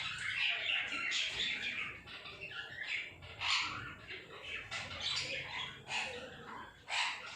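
Yellow-sided conure squawking and chattering: a run of harsh, scratchy calls, with several louder short screeches a second or two apart.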